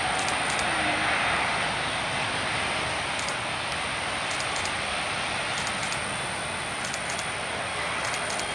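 Twin jet engines of an Airbus A330-300 airliner at takeoff thrust during its takeoff roll: a steady, even rush of jet noise with low rumble.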